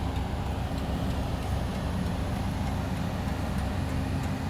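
Steady low rumble of engines from highway construction equipment and passing traffic, with a constant low hum underneath.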